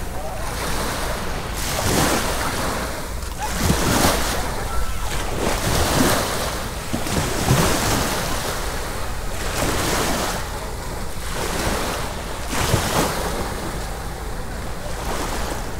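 Sea waves washing onto a beach, the wash swelling and falling back every second or two, with wind rumbling on the microphone underneath.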